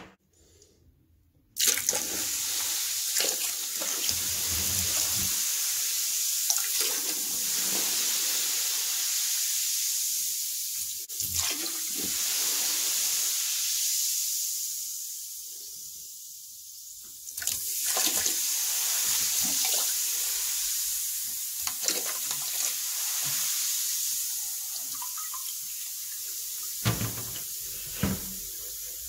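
Vinegar being poured from a bottle into a nearly empty toilet tank onto baking soda, a steady splashing pour. It starts about a second and a half in, eases off for a moment midway, then runs on again.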